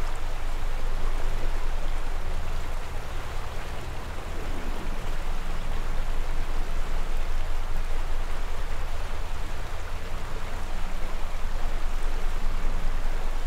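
River rapids: whitewater rushing steadily over rocks, a continuous hiss of water over a deep low rumble, easing slightly about four seconds in.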